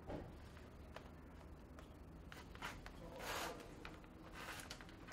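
Thread being drawn through leather as a shoe is hand-stitched: faint rubbing and rustling with a few light ticks, and one longer rasp of the thread pulled through about three seconds in.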